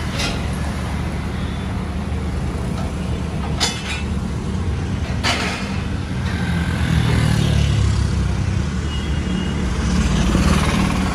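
Steady low rumble of an idling truck engine mixed with road traffic, swelling louder as vehicles pass about seven and ten seconds in. Two brief sharp noises come near four and five seconds in.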